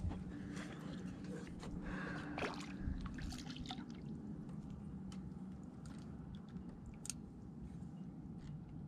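Water dripping and splashing at the boat's side, with scattered small clicks and rustles from handling a small grouper and fishing tackle over the rail, all over a faint steady low hum.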